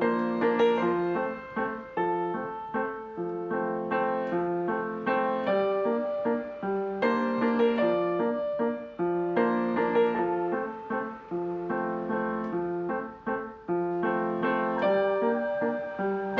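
Background piano music: a gentle piece of repeated chords and melody notes.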